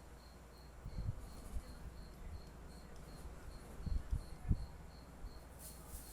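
A cricket chirping steadily, short high chirps about three times a second. A few low thumps come through about a second in and again around four seconds in.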